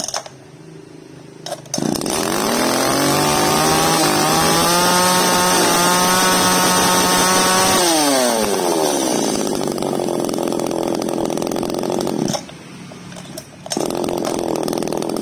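Small 33 cc Tanaka two-stroke chainsaw engine starting up. It revs to full throttle and holds for about four seconds, then drops back to a steady idle. Near the end the sound briefly falls away and then picks up again.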